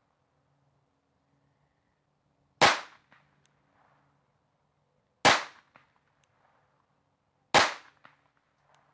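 Three shots from an Astra Cub pocket pistol firing Winchester Super X high-velocity .22 Short, about two and a half seconds apart, each followed by a faint click. The little semi-auto is cycling normally with this ammunition.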